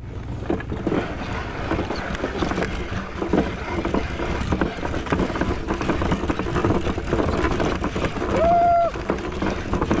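Wooden gravity go-kart rolling downhill, its wheels rumbling and rattling on the road, with wind on the microphone. About eight and a half seconds in, a brief held high call or whistle rises, holds and drops.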